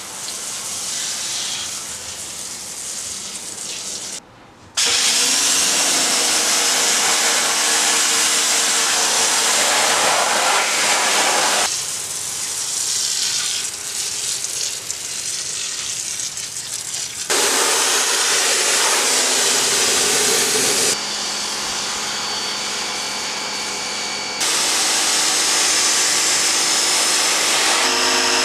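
Water spraying in a steady hiss: a hand-pump sprayer misting a wheel, then a pressure washer jetting the wheels and body, in several stretches that cut from one to the next. A motor hum runs under the spray in some stretches.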